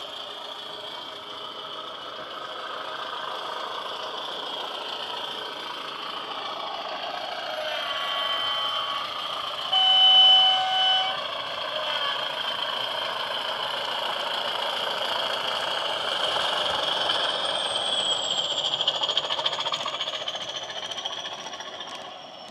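DCC sound decoder playing a Class 20 diesel locomotive's English Electric engine through a 45x20 tablet speaker in a model locomotive, running and growing louder as the model approaches and passes. A two-tone horn sounds about eight seconds in, one note and then a lower, louder one, held about a second each.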